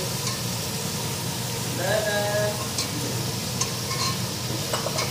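Prawn curry in a thick coconut-cashew gravy sizzling in a black iron kadai while a flat spatula stirs it, with a few light clicks of the spatula against the pan in the second half.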